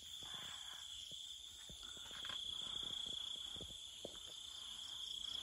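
Night insects chirring in a steady, high-pitched drone, with faint scattered ticks and rustles.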